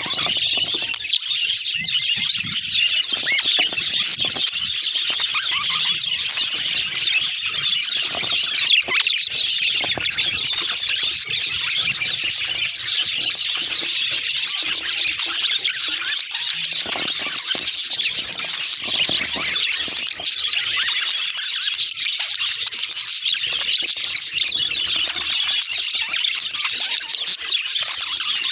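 Budgerigars chattering and warbling without a break: a dense stream of high chirps, squeaks and scratchy squawks.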